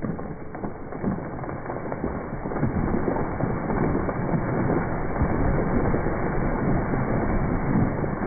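A large beech tree falling, its crown crashing down through the branches of neighbouring trees in a long, dense crackle of snapping wood. It grows louder about two and a half seconds in as the crown hits the ground.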